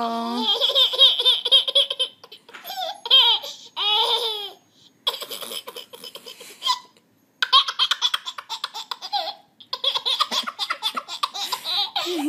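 A baby laughing in repeated high-pitched fits of giggles, with short breaks between them.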